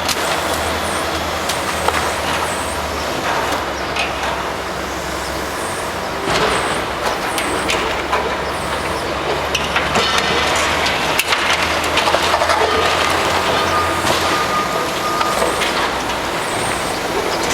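Engine of heavy demolition machinery running steadily, with repeated clanks, knocks and scraping of metal and rubble over it.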